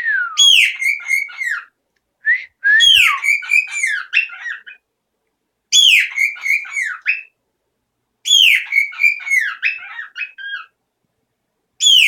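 A pet bird loudly whistling the same swooping phrase over and over, about five times, each phrase a couple of seconds long with short pauses between: its loud whistle rather than its quiet song.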